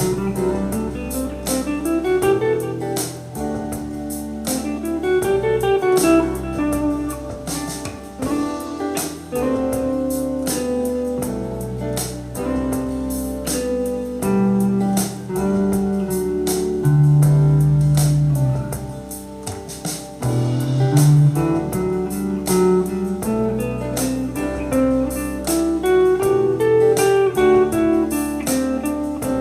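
Guitar playing quick scale runs that climb and fall, mixed with held notes, over a backing track with drums and bass in E minor.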